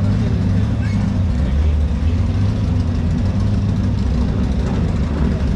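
Off-road race buggy's engine running at a low idle as the buggy creeps along, a steady low rumble, with crowd voices behind it.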